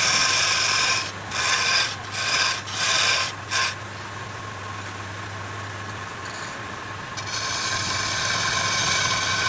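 Wood being scraped or rasped: continuous scraping at first, then about four short strokes, then steady scraping again near the end, over a steady motor hum.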